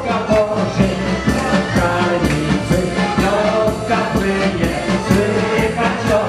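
Dance band playing a lively song with singing over a steady beat, about two to three beats a second.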